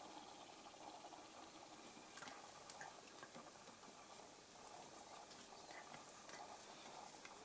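Near silence, with faint soft rustling and a few light scuffs from a Shetland sheepdog and a kitten play-wrestling on a fabric cushion.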